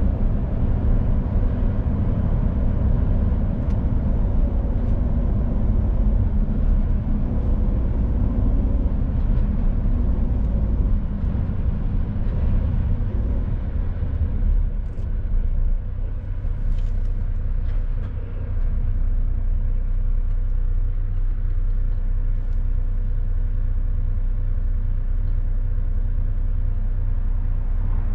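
2018 Mercedes Actros truck driving at road speed: a steady low engine and road rumble, easing a little about two-thirds of the way through.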